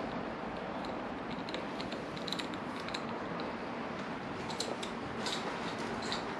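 Small metallic clicks and ticks of a screwdriver undoing the cap screws on a motorcycle clutch master cylinder reservoir, over steady background noise.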